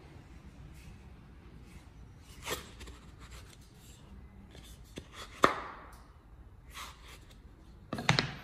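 Hand work on wood pieces at a workbench: scattered scraping and rubbing, with a sharp knock about five and a half seconds in and a short burst of handling noise near the end.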